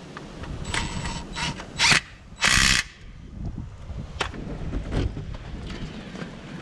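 Ratchet wrench clicking in three short bursts, tightening the drain plug back into the truck's gearbox after the oil has drained, followed by a couple of single knocks.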